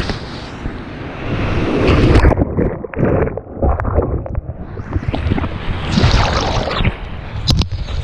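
Whitewater rapids crashing over an inflatable raft, with water washing over the microphone. The rushing is muffled for the first few seconds while the microphone is under water, then opens up again into splashing, with a couple of sharp knocks near the end.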